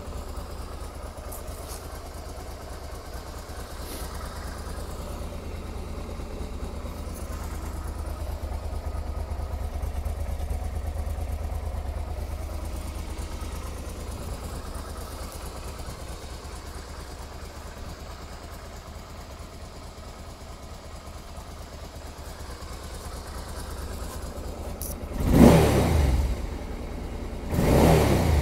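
Honda NT650V Deauville's V-twin engine idling steadily, then revved twice briefly near the end.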